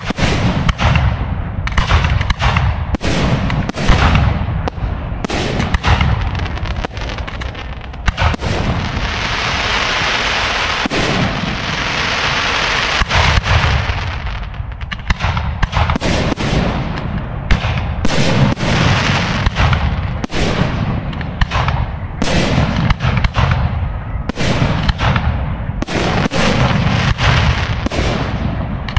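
Aerial fireworks display: shells bursting one after another in rapid, irregular succession. Partway through, a dense, continuous hiss holds for several seconds.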